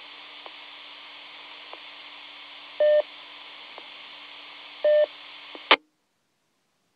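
FM repeater audio from a two-metre mobile radio: a steady hiss with a low hum from the open carrier, two short beeps about two seconds apart, then a brief squelch-tail crackle as the carrier drops and the receiver goes silent.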